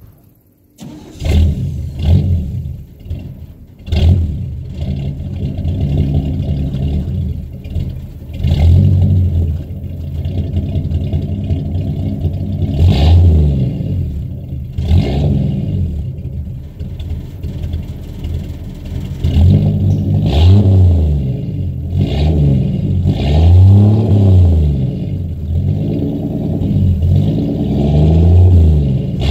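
A 250 cubic inch straight-six engine, exhausting through a single Flowmaster Super 10 muffler, starts about a second in, then runs and is revved up and down again and again, with a run of quick rev blips in the second half.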